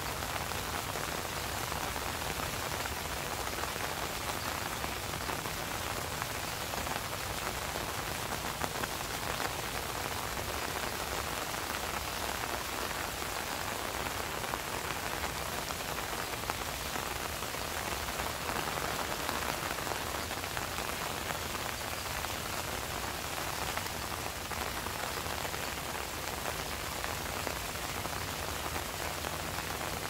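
Steady rain falling onto the flooded water of a rice paddy, an even spread of drops hitting the water with no let-up.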